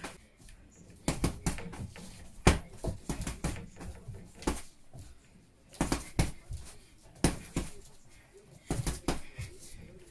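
Punches landing on a hanging heavy punching bag: irregular sharp thuds, often two or three in quick combinations with pauses between.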